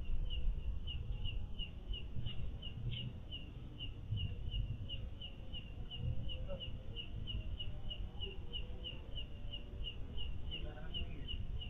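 A steady series of short high chirps, about three a second, from a night animal, over a low rumble of microphone noise. Faint voices come and go in the background.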